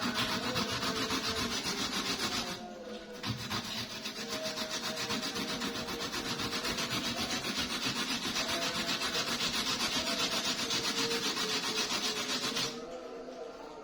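Kencur (aromatic ginger) rhizome being grated on a hand grater: quick, even scraping strokes, with a short pause about three seconds in, stopping about a second before the end.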